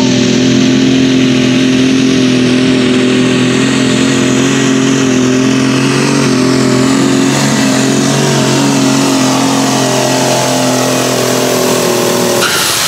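New Holland super stock pulling tractor's engine running flat out under load as it drags the weight sled, holding a steady pitch. The engine note drops away near the end.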